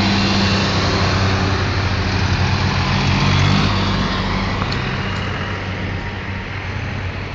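Farm tractors' diesel engines running as they drive past close by. The low engine note is strong at first, then fades away after about three and a half seconds as the tractors move off.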